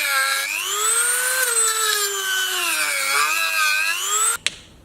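Dremel rotary tool running at high speed and cutting into the plastic intake manifold, its whine sagging and rising in pitch as it bites and frees. It stops abruptly near the end, followed by a sharp click.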